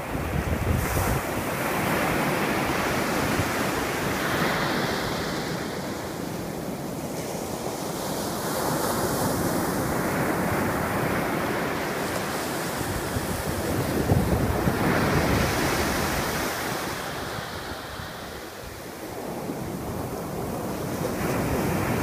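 Atlantic Ocean surf breaking and washing up a sandy beach, the rush of the waves swelling and fading every several seconds. Wind rumbles on the microphone, most strongly near the start.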